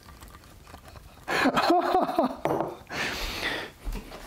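A man's wordless, straining voice and breath while he tries to twist open a metal mason-jar lid rusted stuck by the acid of a long fermentation, with faint clicks from the jar at first. A dull thump near the end.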